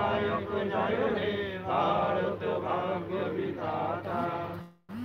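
A group of monks' voices chanting together in unison, with long held notes; the sound cuts out for a moment near the end, then resumes.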